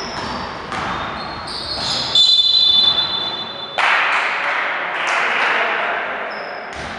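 Referee's whistle blown in one long blast about two seconds in, stopping play in a basketball game. It comes after short squeaks and a ball bounce on the gym floor, and a sudden burst of hall noise follows it at about four seconds.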